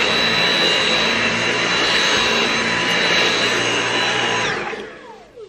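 Cordless stick vacuum cleaner running with a steady high whine. It is switched off about four and a half seconds in, and its motor winds down in a falling whine.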